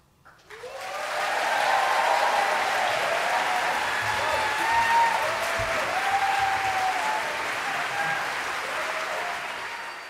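Audience applauding and cheering after the last chord fades: about half a second of near silence, then clapping rises quickly and holds, with rising and falling whoops and shouts over it.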